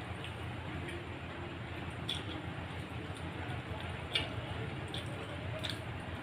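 Eating by hand: a few short, soft wet clicks and squishes from fingers and mouth as fried fish is picked apart and eaten, over a steady low background hiss.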